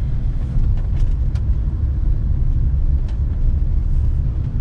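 Steady low rumble of a car driving slowly, heard from inside the cabin, with a few faint clicks.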